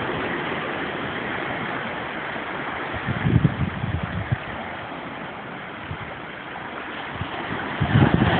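Ocean surf washing in among shoreline rocks, a steady hiss of foaming water, with louder low rumbles about three seconds in and again near the end.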